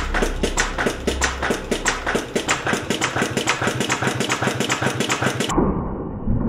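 Habraken heavy-duty industrial sewing machine stitching leather: a rapid, even clicking of the needle strokes. About a second before the end it changes abruptly to a duller, muffled knocking.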